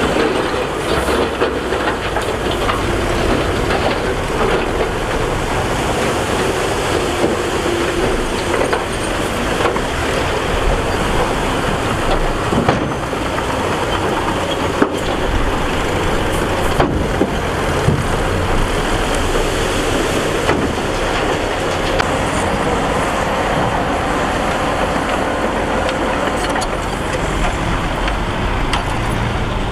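Crawler bulldozer's diesel engine running steadily under load, with scattered sharp metallic clanks from its steel tracks.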